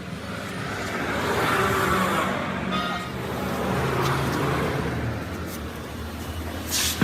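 Motor vehicle noise: a steady low engine hum with road noise that swells twice and fades, like traffic passing close by.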